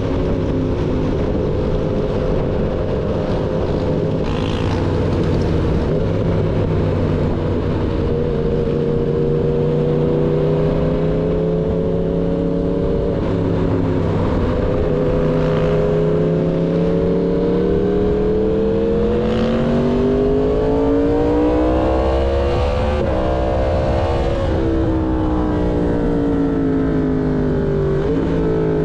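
Yamaha MT-10's crossplane inline-four running through an SC-Project full-system exhaust under way. The engine note rises and falls gently with the throttle, climbs steadily for several seconds about two-thirds of the way through, then drops away.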